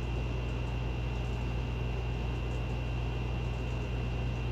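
Steady background noise of a home voice recording: a low hum with an even hiss and a faint high-pitched whine, unchanging throughout, with no other sound.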